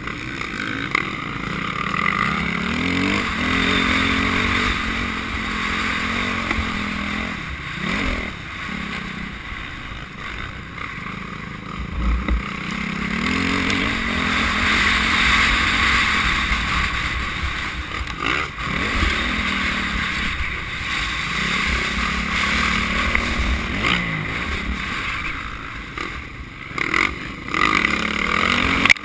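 Motocross bike engine heard onboard, repeatedly revving up and dropping back as the rider accelerates and shifts, with wind rushing over the microphone. A few short thuds break in along the way.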